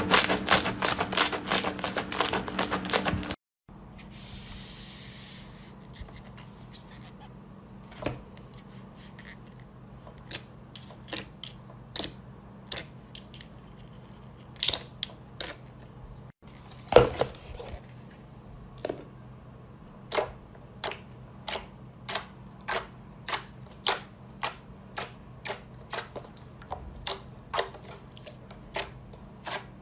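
Slime being handled, giving sharp clicking pops. The pops come dense and rapid at first; after a cut they are sparse, and they settle into a steady run of about one pop every half second over a faint steady hum.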